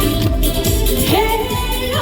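A Korean song from a backing track over a PA, with a steady beat. A woman's voice slides up into a held note about a second in.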